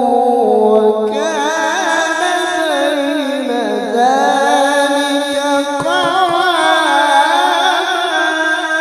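Male qari's Quran recitation in the melodic tilawah style: long-breathed phrases of a single voice, drawn out and ornamented with wavering turns through the notes, sung into a microphone.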